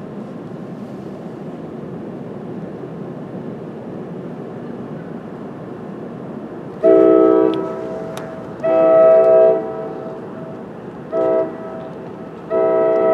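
NJ Transit ALP-45DP locomotive's air horn sounding four blasts, long, long, short, long: the standard grade-crossing signal. The last blast is still sounding at the end. For the first seven seconds there is only a steady rumble of the approaching train.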